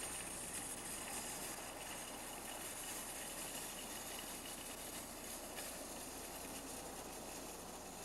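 A steady, even hiss with a faint low hum underneath, with no distinct events.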